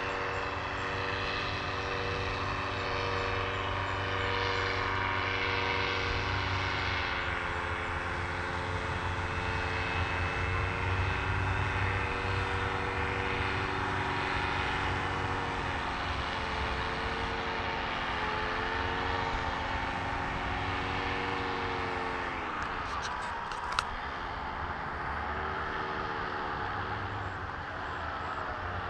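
Engine and propeller of a small powered aircraft flying over the field, a steady drone whose pitch slowly wavers, dipping and climbing back about three-quarters of the way through. A single sharp click lands during the dip.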